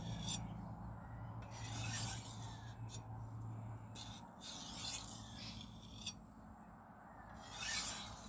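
Japanese kurouchi bunka knife blade being drawn across a Shapton Pro 1000 water stone in slow strokes: a hissing scrape about every three seconds, with light clicks between the strokes.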